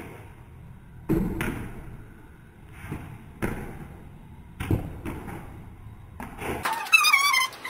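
A ball kicked and bouncing on concrete: a string of sharp thuds roughly a second apart. Near the end a high, warbling squeal comes in.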